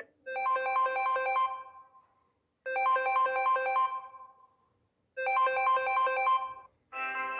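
A Samsung Galaxy A10s ringtone playing from the phone's speaker: a quick run of pitched notes, repeated three times with short silent gaps between. Near the end a different ringtone starts with steadier held notes.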